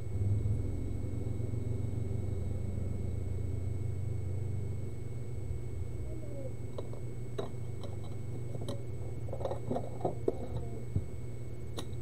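Steady low electrical hum with faint high-pitched whine from the repair bench, the hum easing about halfway through. In the second half come a handful of light clicks and taps as the soldering iron tip and metal tweezers touch the laptop motherboard.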